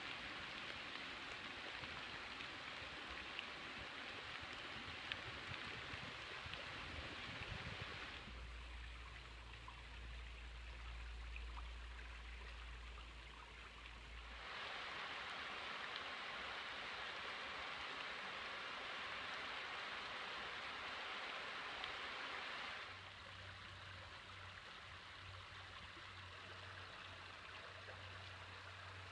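Shallow water running over rocks in a river and creek, a steady hiss that changes abruptly at cuts. A low rumble runs from about 8 to 14 seconds in, and from about 23 seconds in the water sound drops quieter over a low hum.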